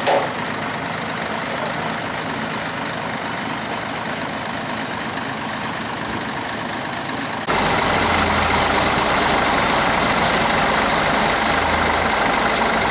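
Heavy diesel truck engines running steadily at idle. About seven seconds in, the sound cuts abruptly to a louder, closer truck engine with a steady low hum.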